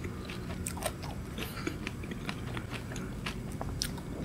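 Eating a Mat Kool Asteroid ice cream: biting and chewing through its chocolate-and-peanut coating, a scatter of small crisp crunches.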